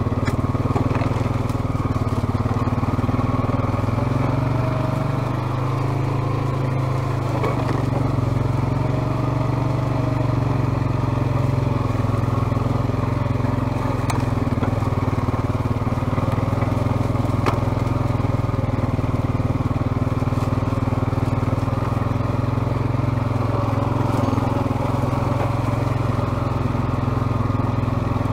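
ATV engine running steadily at an even pitch, with a few sharp clicks along the way.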